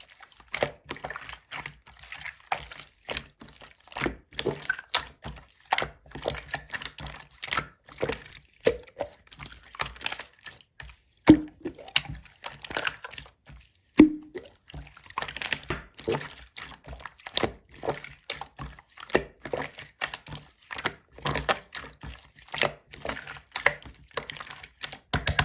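Clear slime being squished and pressed by hand: a constant run of wet, sticky clicks and small air-bubble pops, with two louder pops near the middle.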